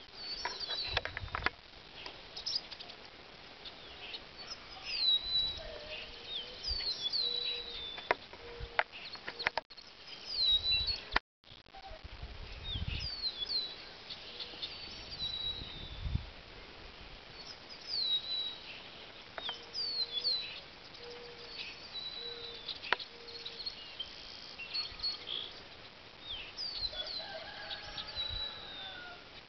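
An unidentified songbird singing: short, high, quickly falling slurred phrases, repeated every second or two. A few sharp clicks and low thumps come in between, and near the end lower curved calls join in.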